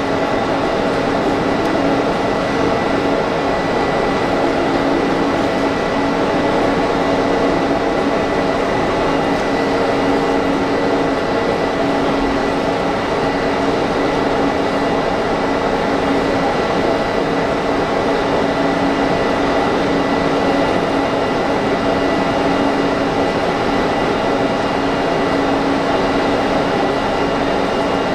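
Stationary JR 651 series limited-express electric train with its air conditioning and on-board electrical equipment running, a steady hum with a few held tones including a thin high whine.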